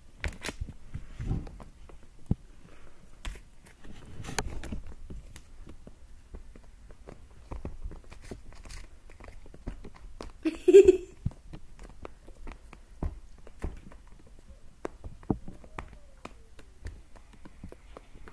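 Scattered soft taps, rustles and knocks from a tabby cat batting at a toy on a fabric sofa arm and from a handheld phone being jostled close by. About eleven seconds in comes one short, loud cry, the loudest sound here.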